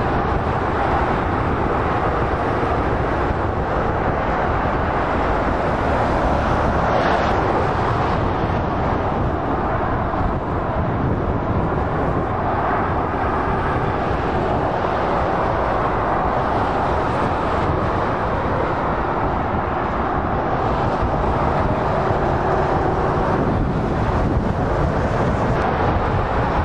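Steady traffic noise from a busy motorway: lorries and cars passing at speed, their tyre and engine noise blending into one continuous rush.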